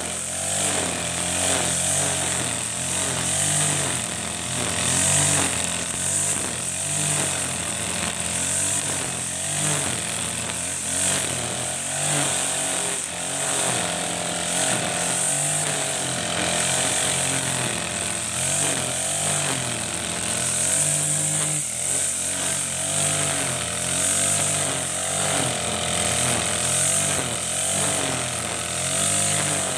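Backpack brush cutter with an Ogawa GX35-type four-stroke engine running at high speed, its nylon trimmer line whirring as it cuts grass. The engine note wavers up and down every second or two.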